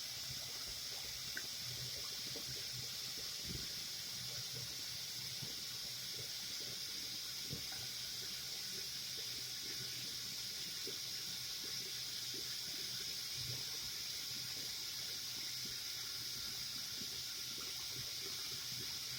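Hot water running steadily from a faucet into a sink as it fills, an even hiss.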